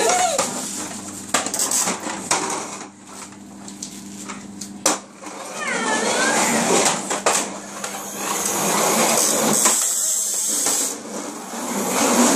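Large plastic toy dump truck handled and pushed along a laminate floor: knocks and clatter of hard plastic, then a rolling rumble of its wheels that swells about eight seconds in.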